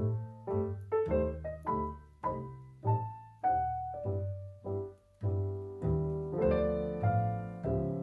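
Background piano music: single notes struck at an unhurried, even pace, about two a second, over low bass notes, with fuller chords in the second half.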